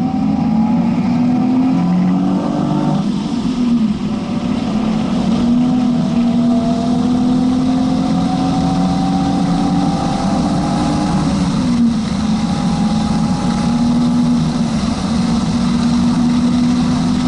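BMW 330i's 3.0-litre inline-six pulling hard, heard from inside the cabin, its revs climbing slowly and dropping sharply at gear changes about three and eleven seconds in. The driver puts the slow climb down to clutch slip.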